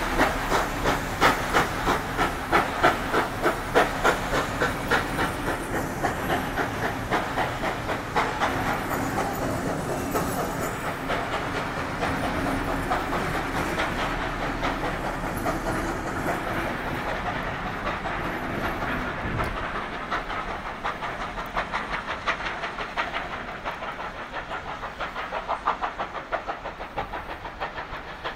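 NSWGR C38 class steam locomotive 3801 pulling away with its train: rhythmic exhaust beats and steam hiss, loudest at first and gradually fading as it draws off. Then the rolling rumble and clickety-clack of the carriage wheels over the rail joints.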